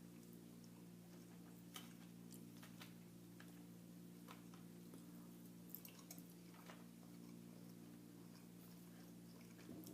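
Faint chewing and wet mouth sounds of someone eating, a scattering of soft clicks over a steady low hum.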